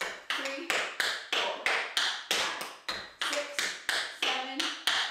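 Metal taps on tap shoes striking a board in a quick run of sharp clicks, about three or four a second, as a tap combination is danced at tempo.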